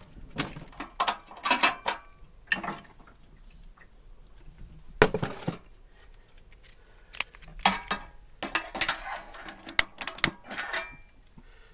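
Irregular clatter of a saucepan and its glass lid being set on a small gas hob, with sharp clicks of a long lighter at the burner near the end.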